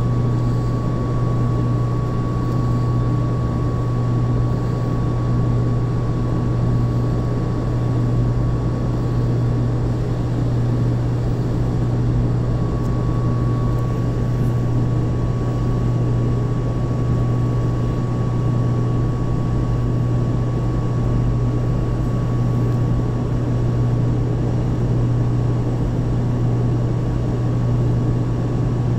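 Steady, loud drone of running industrial machinery: a deep, even hum with a thin steady high whine above it.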